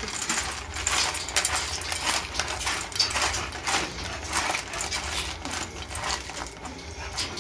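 Hands stirring dry dog kibble in a stainless steel bowl: the pellets rattle and click against each other and the metal in a continuous, irregular patter.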